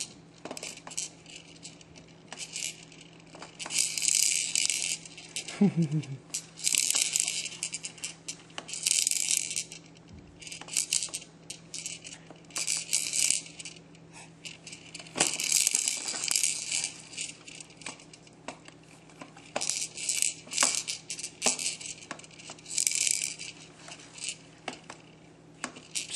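Baby activity centre's clear plastic dome rattle toy, rattled by a baby's hand in repeated bursts of bright rattling, each about a second long.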